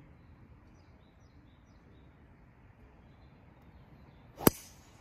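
A golf driver striking the ball off the tee: a single sharp crack about four and a half seconds in, by far the loudest sound, with a brief trailing hiss. Before it, only a quiet outdoor background.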